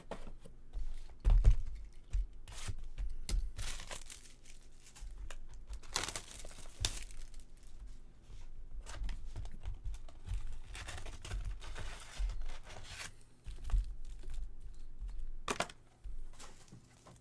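Baseball card pack wrappers being torn open and crinkled by hand, in irregular rips and crackles, with a handling knock on the table about a second and a half in.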